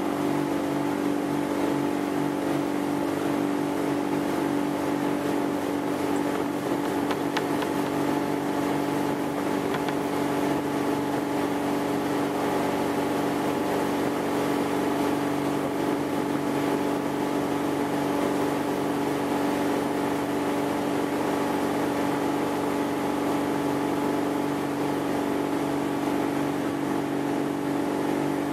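Ski boat engine running at a steady towing speed, one unchanging drone, over the rush of water and wind.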